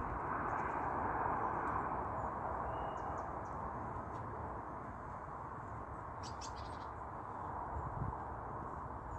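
Steady rushing outdoor background noise with a low rumble, and a few faint, short bird chirps high above it.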